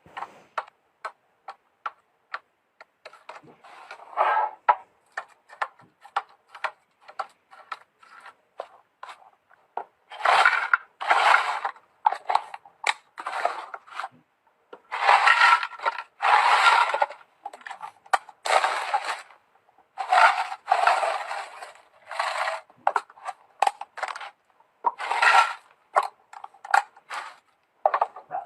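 Things being handled and set down: a string of short clicks and knocks, with longer scraping, rustling strokes that come more often in the second half.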